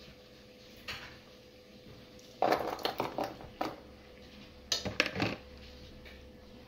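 Clattering and clinking against a pot as pieces of Korean rice cake are put into boiling water: a single clink about a second in, a cluster of clatters from about two and a half to three and a half seconds, and another near five seconds. A low, steady hiss of the boiling water and a faint steady hum run underneath.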